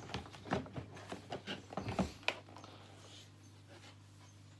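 A hard plastic carry case being opened by hand: a run of clicks and knocks as its catches are undone and the lid is lifted, dying away after about two seconds.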